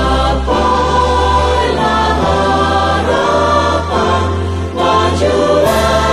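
Choir singing a university hymn in Indonesian in long held notes over instrumental accompaniment with a steady low bass.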